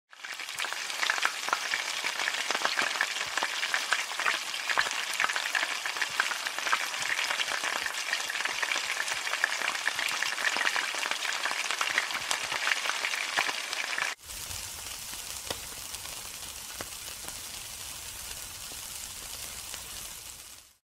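Food sizzling and crackling in hot oil in a wok, with the scrape and clatter of stirring. About 14 seconds in it cuts suddenly to a quieter, steadier sizzle with a low hum under it.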